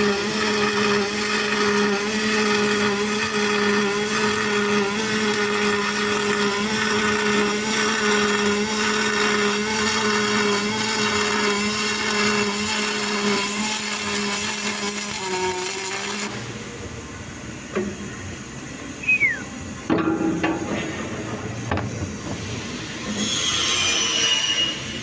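MIG welding arc on aluminum, a steady buzzing hiss that runs unbroken and then cuts off about two-thirds of the way through. After it come quieter clicks and a few short high squeaks.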